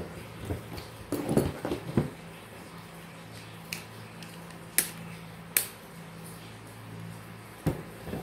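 Metal tool clicks and knocks as a standing-fan motor is taken apart with a screwdriver and pliers: a cluster of knocks about a second in, then a few separate sharp clicks, over a low steady hum.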